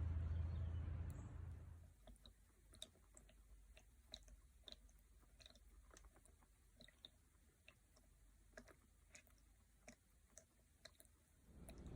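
A low, steady rushing noise fades out about two seconds in, then faint water clicks and drips at irregular intervals.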